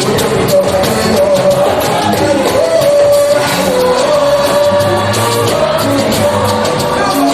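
Church choir singing a gospel song with held, sliding vocal lines over bass notes and steady percussion.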